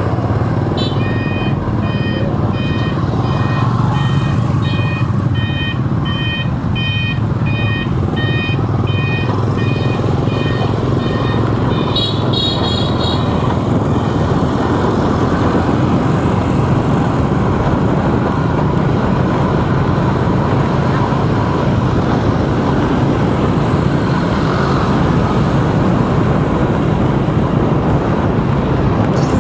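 Steady road traffic and vehicle engine noise while driving through city streets. For roughly the first ten seconds an electronic beeping repeats about twice a second, like a truck's reversing alarm, with a brief higher-pitched beep about twelve seconds in.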